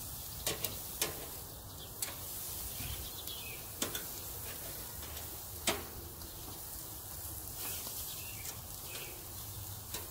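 Food sizzling on a hot barbecue grill: a steady hiss broken by a few sharp clicks, the loudest a little past halfway.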